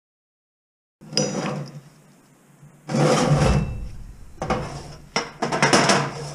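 Silence for about a second, then metal vise parts being handled and set down on a work surface: a series of clunks, clicks and scrapes, the loudest a longer scraping knock about three seconds in.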